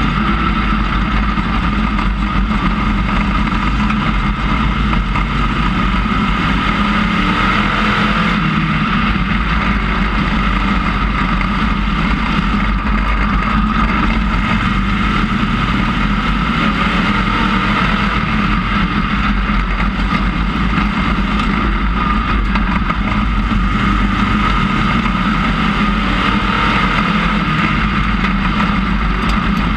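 Dirt-track IMCA Sportmod race car's V8 engine running hard at speed through practice laps, heard from inside the cockpit. The note is loud and steady, varying only a little.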